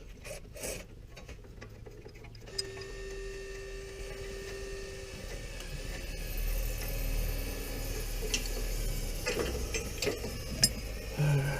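A hand ratchet clicking in a quick run, then scattered light metal clicks of tool handling over a faint steady hum.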